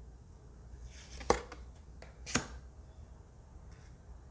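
Two crisp snaps of tarot cards about a second apart as cards of the Linestrider Tarot deck are flipped over in the hands.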